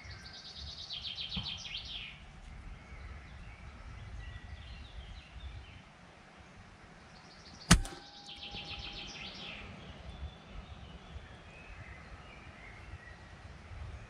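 A single sharp crack of an air rifle shot about eight seconds in. A small bird sings a fast trilled phrase twice, near the start and again just after the shot.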